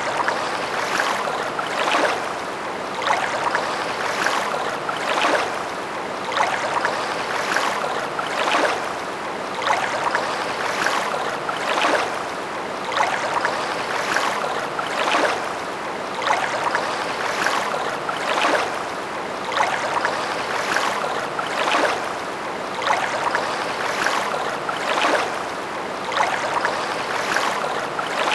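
Steady rushing, water-like noise that swells in regular pulses about once a second.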